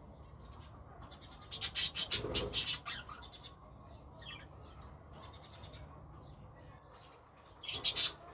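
Budgerigars chirping softly, with two loud, harsh, rapidly pulsing calls: one about a second and a half in, lasting over a second, and a shorter one near the end.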